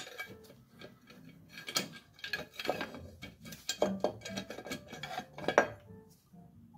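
Metal rocker cover of a 1967 Wards Riverside 250 (Benelli) engine being worked by hand onto the cylinder head over the rocker arms, giving an irregular run of clinks, knocks and scrapes, with the sharpest knock about five and a half seconds in. Soft music starts near the end.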